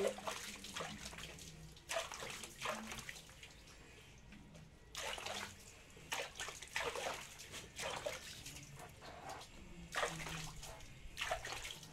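Water splashing and hands rubbing a wet dog's soapy fur during a bath, in irregular bursts with a short quieter pause partway through.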